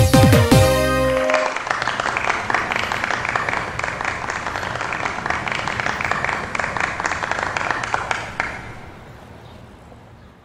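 The song's music ends about a second in, and a small audience applauds, the clapping then fading away near the end.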